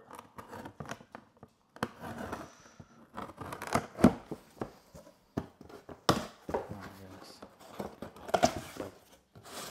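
Cardboard box being cut and pulled open by hand: a blade slicing through tape and cardboard, with flaps scraping and packing rustling in irregular sharp tears and clicks.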